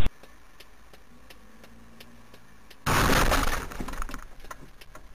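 Car collision: a sudden loud impact with glass shattering about three seconds in, followed by about a second of scattered tinkling debris.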